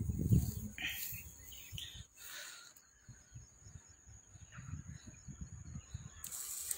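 Footsteps and rustling through tall grass, uneven and strongest at the start, over a faint steady high buzz of insects.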